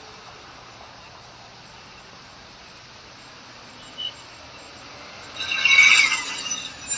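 Steady hiss, with a brief high beep about four seconds in, then a loud, high-pitched cry lasting about a second near the end.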